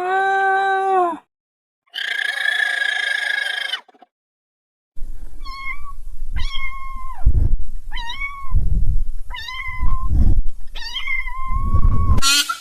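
A cat meowing repeatedly: about seven short meows roughly a second apart in the second half, after two briefer animal calls of a different kind near the start.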